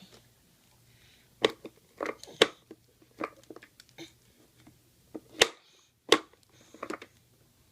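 Irregular sharp knocks and clacks, about eight of them spread over several seconds, the loudest a little past halfway.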